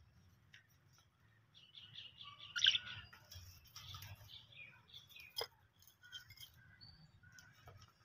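Budgerigars chirping and warbling in a run of short, high twittering notes, loudest about a third of the way in, with one sharp click a little past halfway.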